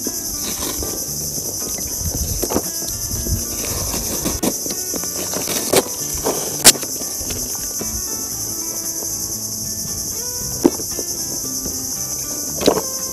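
Steady high-pitched chirring of insects, crickets or similar, with a few sharp clicks over it, the loudest about halfway through.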